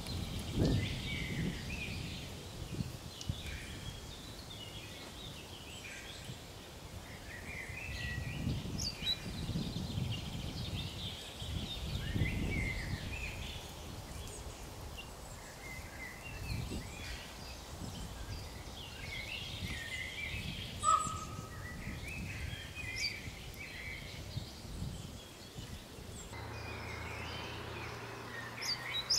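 Woodland songbirds singing and calling: many short chirps and trills overlapping, with intermittent low rumbles underneath.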